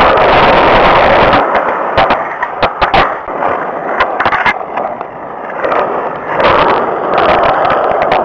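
Skateboard wheels rolling on concrete and asphalt, a loud rough rolling noise that drops away about a second and a half in and comes back about six and a half seconds in. In between, a run of sharp clacks of the board and wheels striking the ground, clustered around two to three seconds and again around four seconds in.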